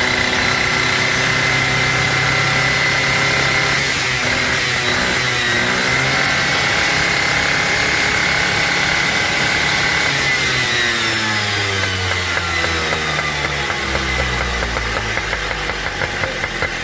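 Two-stroke three-wheeler engine running steadily at a fast idle, dipping briefly about four seconds in. From about ten seconds in it slows to a lower, uneven idle as the carburettor is being tuned.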